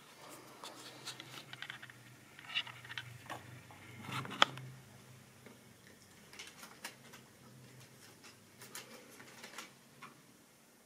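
Light clicks and taps of plastic model railway wagons being handled and set on the track, with one sharp click a bit over four seconds in, over a faint steady low hum.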